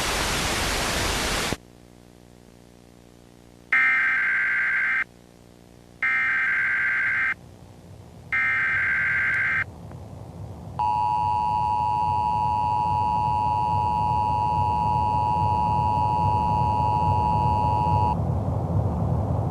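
A burst of static, then the three short warbling data bursts of an Emergency Alert System SAME header, then the EAS two-tone attention signal (853 and 960 Hz together) held for about seven seconds. When the tones cut off, a low noise remains.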